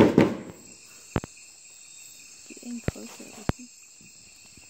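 Night chorus of crickets and other insects, a steady high-pitched trilling, after a loud crackling noise in the first half-second. A few sharp clicks and faint murmured voices sound over it.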